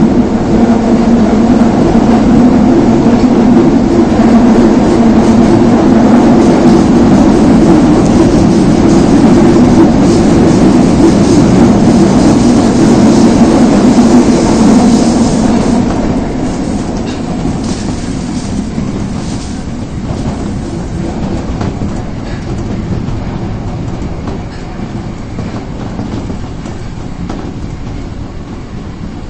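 Osaka Metro Tanimachi Line subway train running through the tunnel, its wheels clacking over the rail joints under a steady rumble and drone; about halfway through the noise falls off and stays quieter.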